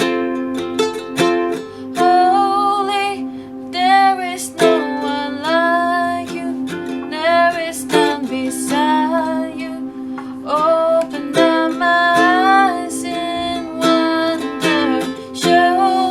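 Worship song: a strummed acoustic string instrument keeps a steady chord rhythm while a single voice sings long, wavering notes over it.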